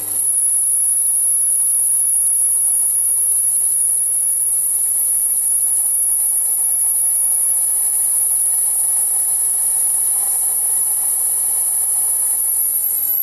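Metal lathe cutting a groove into a spinning metal ball with a grooving tool: a steady, loud, high-pitched whine of the cut over the machine's hum.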